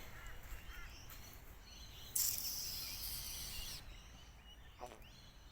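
Outdoor ambience with faint bird chirps and calls, and a high-pitched insect buzz that starts suddenly about two seconds in and stops after about a second and a half.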